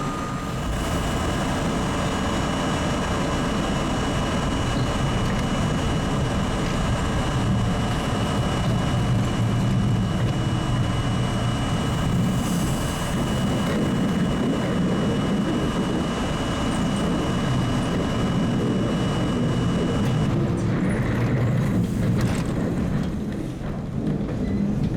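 Subway train running, a steady rumble with a faint steady whine over it, dipping briefly near the end.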